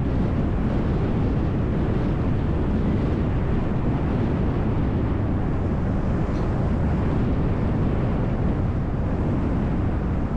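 Steady low rumble of a moving city bus: engine, tyres and road noise held at an even level.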